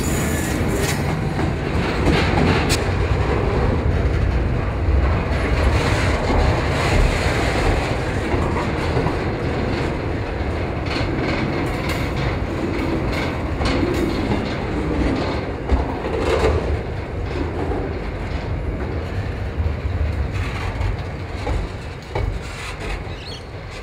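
Freight train's container wagons rolling past close by: a steady rumble of steel wheels on rail with repeated clacks as the wheels cross the bolted rail joints. It eases off over the last couple of seconds.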